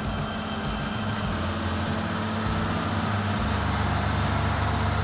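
Heavy machinery engine running steadily with a low drone.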